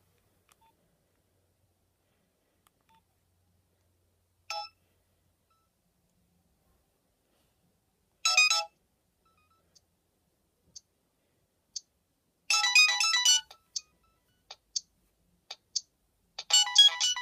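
A Nokia 7100 Supernova's loudspeaker playing ringtone sounds. It is quiet for the first few seconds, then gives single short beeps and brief snatches of a high-pitched ringtone melody about eight and twelve seconds in. A ringtone tune starts playing continuously near the end.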